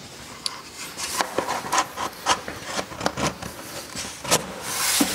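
A wooden divider strip being slid and fitted into a slotted wooden knife-holder drawer insert: irregular light wooden knocks and clicks with rubbing and scraping of wood on wood, the sharpest knock a little past four seconds in.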